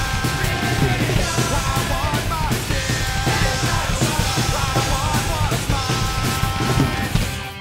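Mapex drum kit played hard with cymbal crashes, along to a rock song with shouted vocals. The whole mix drops in level right at the end.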